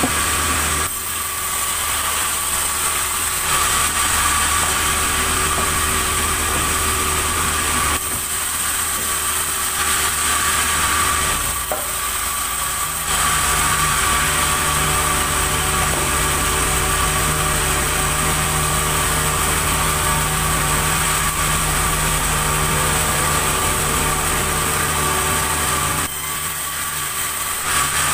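Sawmill saw running while cutting a log: a steady mechanical whine over a low hum, its tone shifting a few times.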